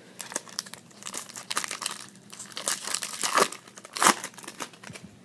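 Foil wrapper of a trading-card pack crinkling as it is handled and torn open, the loudest crackle about four seconds in.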